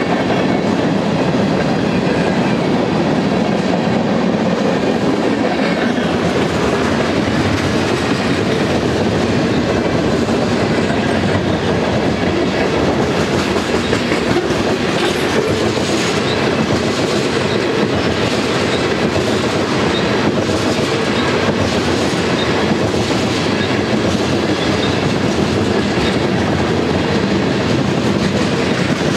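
Freight cars of a Union Pacific manifest train (covered hoppers, then tank cars) rolling by: a steady rumble of steel wheels on rail, with repeated clicks of wheels passing over rail joints.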